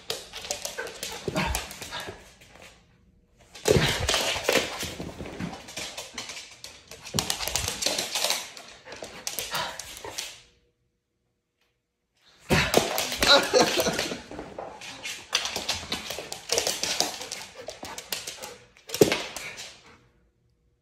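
Siberian husky doing zoomies on a hard floor: claws clattering and scrabbling as he runs and turns, mixed with barks and whines. The noise comes in bursts, with a break of about two seconds midway.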